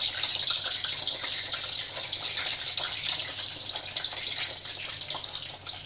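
Peeled boiled eggs frying in hot mustard oil in an iron kadhai: a steady sizzle with crackling spatter, easing slightly near the end.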